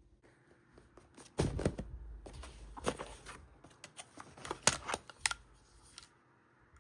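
Glock 18C gas blowback airsoft pistol being handled: a string of irregular sharp mechanical clicks and clacks over a few seconds, the loudest about two-thirds of the way in.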